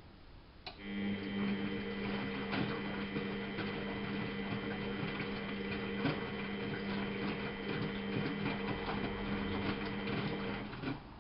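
Miele Novotronic W830 washing machine's motor starting up, running with a steady hum and scattered clicks for about ten seconds, then stopping abruptly, like one turn of the drum in the wash rhythm.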